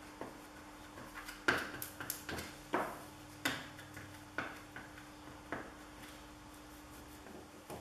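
Short scraping strokes of a small hand tool rubbed over a freshly glued printed sheet, pressing it flat along a seam: about nine irregular strokes in the first five and a half seconds, over a faint steady hum.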